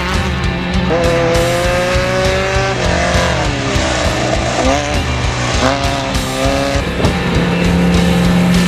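Off-road race vehicle engine running hard, its pitch rising and falling as it revs through the gears, over background music with a steady bass.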